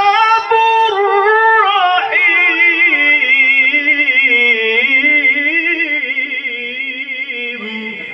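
A man reciting the Quran in a melodic, ornamented style through a handheld microphone and PA. He draws out the closing words of a verse in one long phrase with wavering pitch, which grows quieter near the end.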